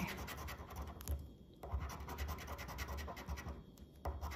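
A coin scraping the latex coating off a scratch-off lottery ticket in quick back-and-forth strokes, with two short pauses.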